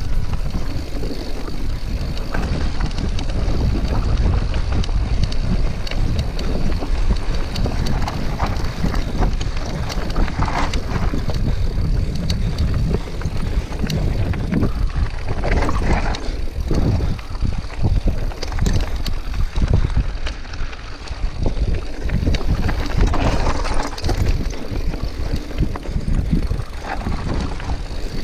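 Mountain bike riding a trail: steady wind buffeting the microphone, with irregular clattering knocks from the bike over rough ground.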